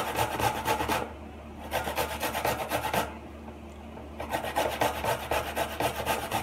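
Fresh ginger being grated on a metal box grater: quick, rasping strokes in three bouts with short pauses between them.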